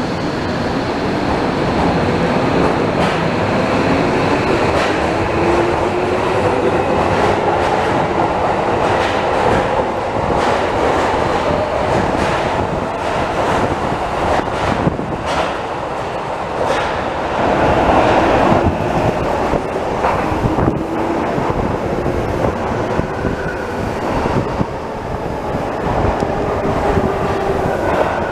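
Electric subway train pulling out of an underground station: its motor whine rises in pitch as it gathers speed and the wheels clatter over rail joints as the cars pass. Later another train runs in along the platform.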